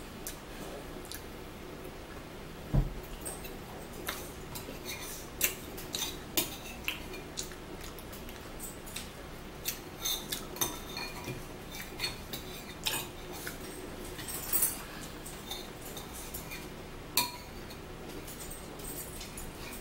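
Cutlery clinking and tapping against dishes while eating: sharp, irregular clicks scattered throughout, some louder than others.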